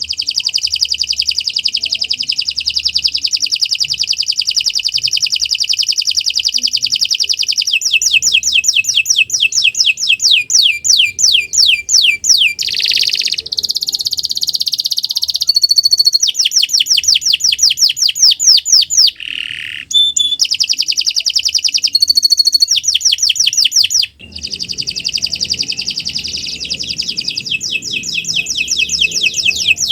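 Domestic canary singing a long, nearly unbroken song of fast rolling trills and rapid repeated notes, the phrase changing every few seconds, with two brief pauses about two-thirds of the way through.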